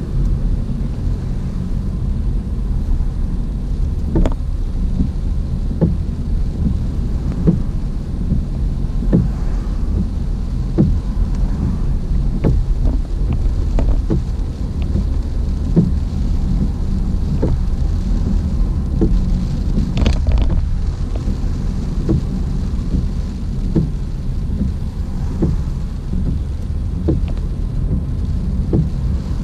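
Car driving in heavy rain: a steady low rumble of road and engine with the hiss of rain, and a sharp tick about every second and a half to two seconds.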